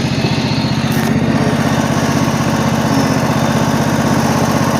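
John Deere lawn mower engine running steadily while mowing, with an even pulsing beat.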